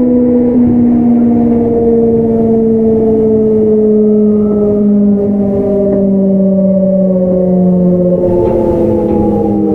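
Hitachi GTO-VVVF inverter traction motors of a Kintetsu 1031-series train whining in several tones that fall slowly in pitch as the train slows under braking, over the rumble of wheels on rail. About eight seconds in the whine shifts, with a new set of higher tones starting as the inverter changes its modulation.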